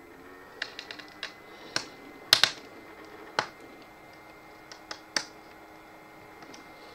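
Irregular light clicks and taps of hands handling tools and the opened laptop; the loudest pair comes about two and a half seconds in.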